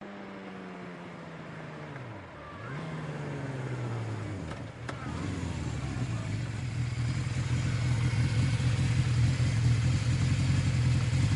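Motorcycle engine under way, its note dropping in pitch twice, about two seconds in and again about four and a half seconds in, then holding steady and growing louder.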